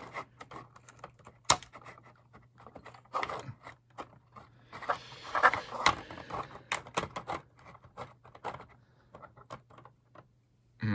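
Scissors snipping and stiff plastic toy packaging rustling, scraping and clicking, with a sharp click about one and a half seconds in and a busier stretch of rustling around the middle.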